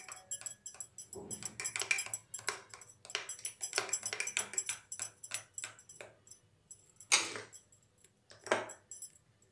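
A spoon clicking and scraping against a glass bowl in quick, irregular strokes as it stirs instant coffee powder into thick cake batter. Two louder scrapes come near the end.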